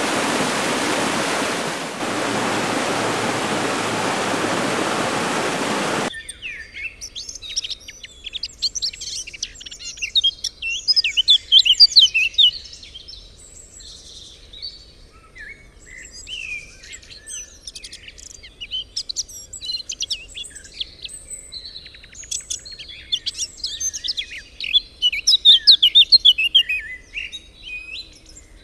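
A waterfall rushes steadily, then cuts off abruptly about six seconds in. After the cut, small birds chirp and twitter in quick runs of high notes, loudest around the middle and again near the end.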